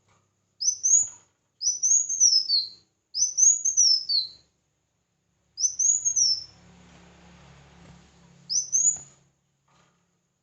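A small songbird calling: five short, high chirps, each sweeping up and then down, the first four spaced about a second apart and the last after a longer pause near the end.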